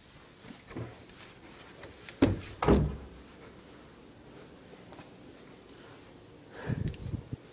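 A door being handled: two clusters of thuds and knocks, about two and a half seconds in and again near the end.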